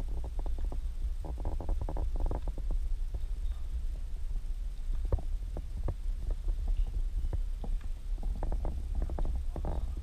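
Spatula folding a soufflé mixture in a metal mixing bowl: soft, irregular scrapes and taps against the bowl, busiest about a second in and again near the end, over a steady low hum.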